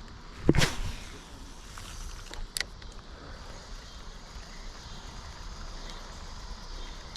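Fishing rod and reel casting a chatterbait lure: one loud swish about half a second in, then a short sharp click about two seconds later, over steady background noise.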